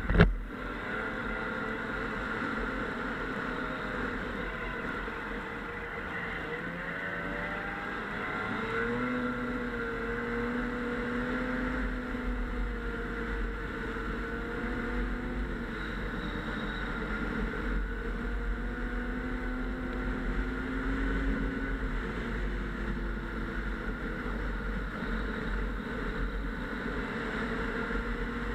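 Snowmobile engine running under way, its pitch rising and falling with speed over a steady low rumble. A sharp thump comes right at the start.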